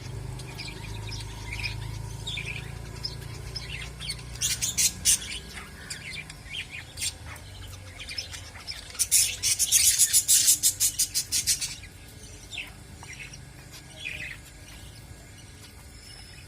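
Cage birds (budgerigars and finches) chirping, with two bursts of rapid high chattering, one about four seconds in and a longer one around the middle, over a low steady hum.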